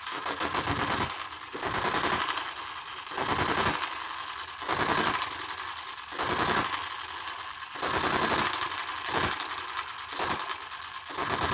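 Enjomor model hit-and-miss engine running, firing in bursts of rapid pops about every second to second and a half, with fast ticking of its mechanism in between. Its governor is not working properly and is held by finger to keep it firing.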